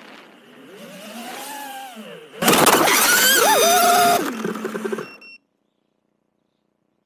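A five-inch FPV quadcopter's motors whine, rising and falling in pitch. Then, about two and a half seconds in, it crashes into bamboo scaffolding: a sudden loud clattering impact with the motors still whining, which lasts under two seconds, tails off, and cuts out.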